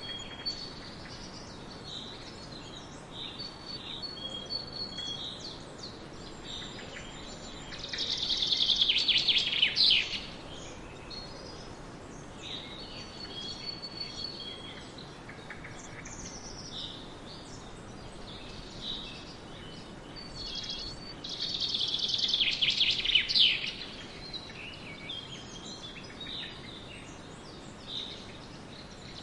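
Several songbirds singing and calling in a forest, with short chirps throughout. Two louder song phrases of rapid notes, each about two seconds long, come about eight seconds in and again about twenty-two seconds in.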